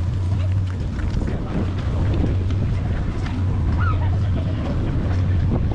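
A vehicle's engine runs steadily with a continuous low hum, with wind buffeting the microphone as it moves.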